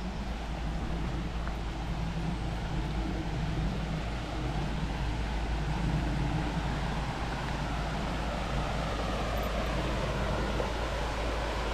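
Flowing river water making a steady rushing noise.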